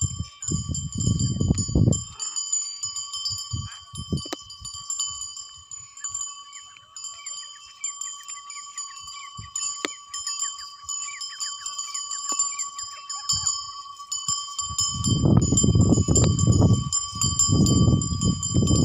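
Wind gusting on the microphone, loud in the first two seconds and again over the last four, over a steady high-pitched ringing that never stops.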